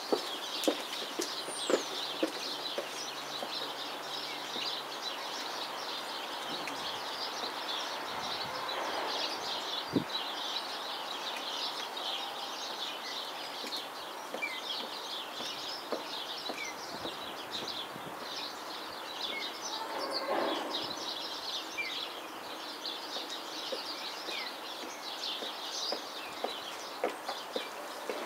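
Small birds chirping busily and without pause, with a few light footsteps on paving near the start and again near the end.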